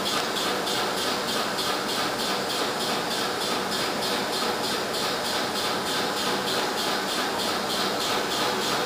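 Steady hissing machine noise with faint steady hum tones and a fast, even pulse in the hiss, unchanging in level.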